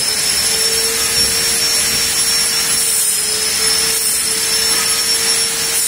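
A steady, loud rushing noise with a faint steady hum running through it.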